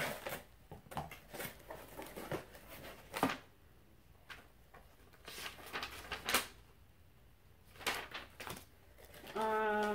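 Cardboard shipping box being opened and a paper packing slip taken out and unfolded: scattered rustles, crinkles and light knocks with quiet gaps between them. Near the end a person's voice sounds briefly on a held pitch.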